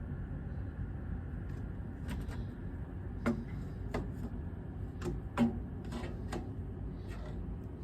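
Scattered light clicks and knocks, about eight at uneven intervals with two louder knocks in the middle, from furnace parts being handled, over a steady low hum.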